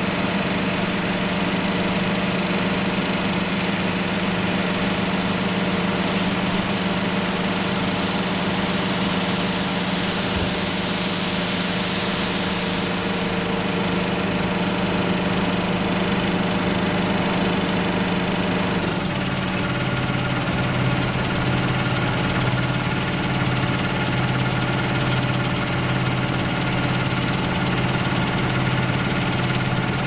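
John Deere 6150R tractor's six-cylinder diesel engine running steadily while it hydraulically tips a loaded grain trailer. About two-thirds of the way through, the engine note drops to a lower pitch.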